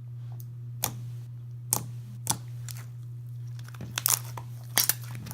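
Thick slime being squeezed and stretched by hand, giving a few sharp clicks and pops, some in quick pairs, over a steady low hum.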